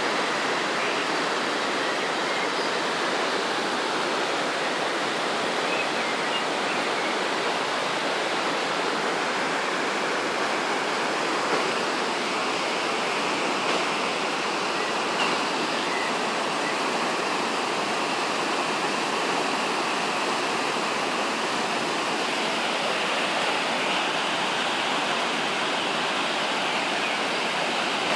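Fils river in flood: fast, muddy high water rushing and churning over a weir, a steady, unbroken rush of water.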